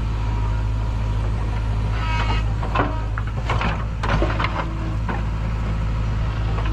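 JCB backhoe loader's diesel engine running steadily while the bucket digs into rocky soil, with a burst of knocks and clatters from the bucket and stones about two to four and a half seconds in.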